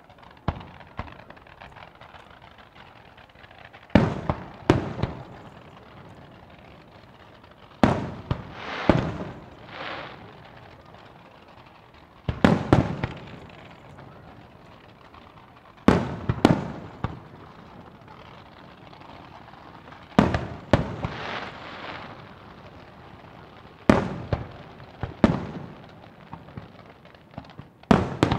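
Fireworks shells bursting: sharp bangs in clusters about every four seconds, each cluster of two or three bangs trailing off over about a second, with faint pops between them. A quicker run of bangs comes near the end.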